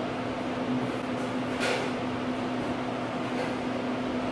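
Steady room hum with a constant low tone, and one brief sharp noise about a second and a half in.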